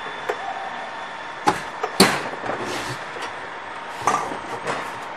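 Several sharp knocks and clunks as a steel machine frame is lifted out of a wooden shipping crate and bumps against it, the loudest about two seconds in and another pair about four seconds in, over a steady background hum.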